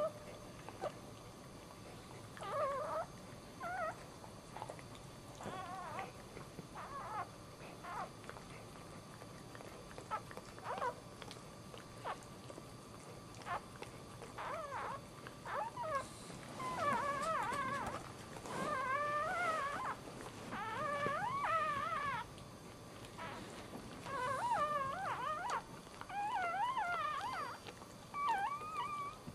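Newborn dachshund puppy crying with thin, high, wavering squeals while its mother licks it clean. The cries are short and scattered at first, then about halfway through come in longer, almost continuous runs.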